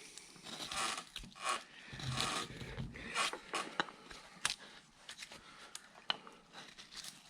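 Hand carving gouge paring wood in a run of short, repeated cutting strokes, with small ticks between them.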